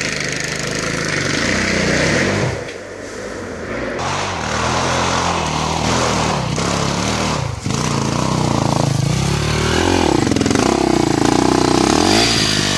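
Enduro dirt bike engine revving up and down as the bike climbs a dirt trail, with the throttle easing off about two and a half seconds in, then revs rising and the engine growing louder as the bike comes up close near the end.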